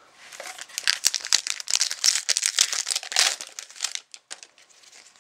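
Foil trading-card pack wrapper crinkling as it is handled, a dense crackle from about a second in to about four seconds, thinning to a few light ticks near the end.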